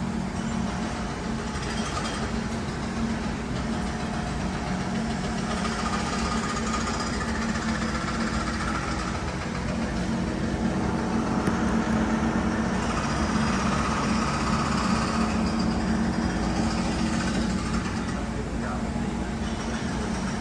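C151 MRT train's electrical and mechanical equipment running: a steady low hum with a rattling, knocking texture and faint higher tones that swell and fade several times.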